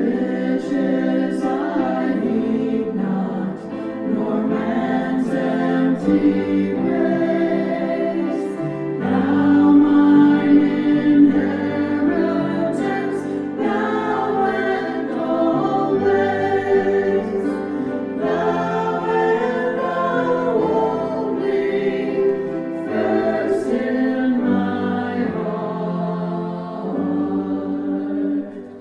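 A choir singing a hymn in held, sustained chords.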